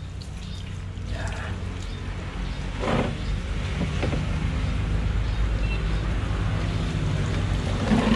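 A motor running with a steady low hum, growing louder about three seconds in, over water trickling from a tap. There are a couple of brief knocks from handling, one about three seconds in and one near the end.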